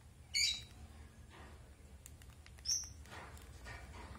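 Two short, high chirps from a lovebird, one about half a second in and a sharper, falling one near three seconds, with light clicks and soft crunching between them as a rosy-faced lovebird pecks and husks seeds from a glass bowl.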